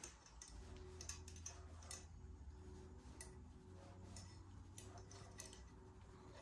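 Faint, irregular small clicks and ticks as a brake hose and a wire internal cable routing tool are handled against a handlebar, over a low steady hum.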